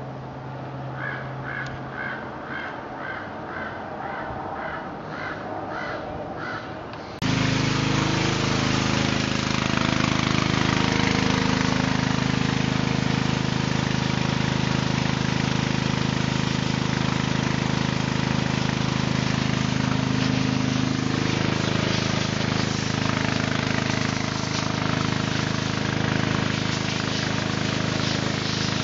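A bird calls over and over in an even series, about two calls a second. Then a pressure washer runs loud and steady, its water jet spraying across wooden deck boards.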